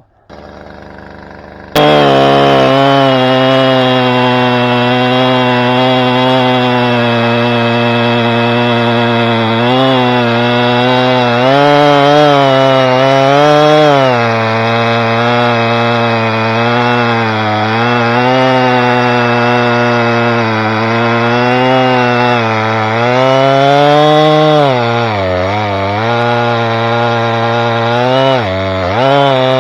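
Two-stroke chainsaw bucking red oak rounds: quieter for about the first two seconds, then at full throttle, its pitch dipping again and again as the chain bogs down in the cut, with deeper dips near the end.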